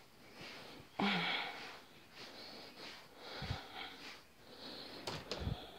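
Breathing close to a phone's microphone, several breaths one after another, with a few soft low thumps of handling or footsteps.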